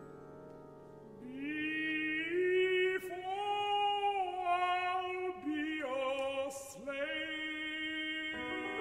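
Contemporary chamber-orchestra music with a solo singing voice: soft held chords, then about a second in the voice enters, holding long notes and sliding up between pitches.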